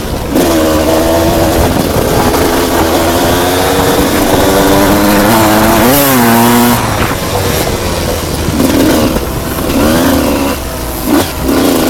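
Enduro motorcycle engine running under load off-road, its revs climbing and dropping with the throttle and gear changes. There is a quick rev up and back down about six seconds in, then more uneven running on part throttle.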